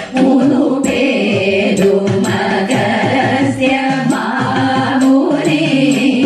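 A group of women singing a Malayalam Kaikottikkali (Thiruvathirakali) song in chorus, with sharp hand claps keeping time.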